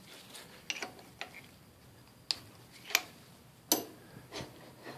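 A handful of sharp, irregularly spaced metal clicks and clinks from parts being handled and shifted on a Logan lathe's compound slide.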